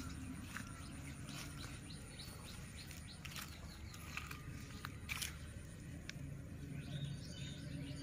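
Outdoor ambience: scattered small bird chirps over a steady low rumble, with a couple of sharp clicks about three and five seconds in.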